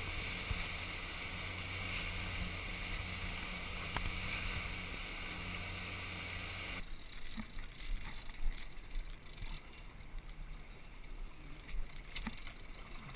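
Twin outboard motors running under way, a steady low hum under the rushing of the wake and hull through the water. About two-thirds of the way in it cuts abruptly to quieter, uneven water and wind noise with a few scattered knocks.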